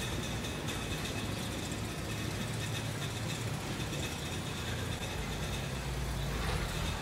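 A steady low rumble of an idling engine, with two faint, thin, steady high tones above it.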